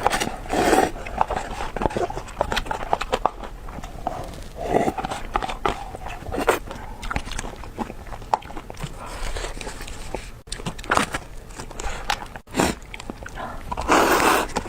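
Close-miked eating of noodles: wet chewing and lip-smacking with many small clicks, and a few louder slurping bursts, the biggest near the end.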